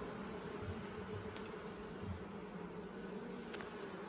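Honeybees buzzing as a steady hum around an open hive during an inspection, with a faint click about three and a half seconds in.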